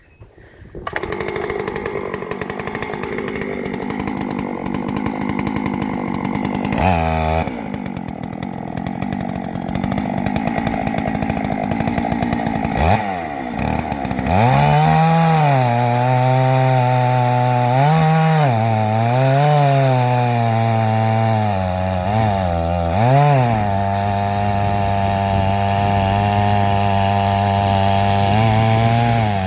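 Two-stroke chainsaw running on an Alaskan chainsaw mill, ripping an ash log. The sound comes in about a second in, and through the second half the engine note repeatedly sags and recovers as the saw bogs under load in the cut.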